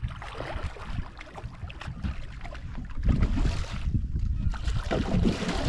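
Irregular water splashing over a low wind rumble on the microphone, with louder bursts about three seconds in and again near the end.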